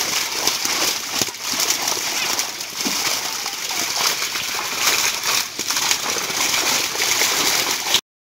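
Dense, continuous splashing and sloshing of water from a netful of fish thrashing in shallow water. It cuts off suddenly near the end.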